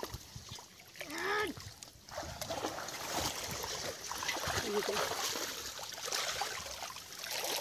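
Muddy shallow water splashing and sloshing as a bamboo-framed hand net is pushed and dragged through dense water hyacinth and grass. A short voice call sounds about a second in.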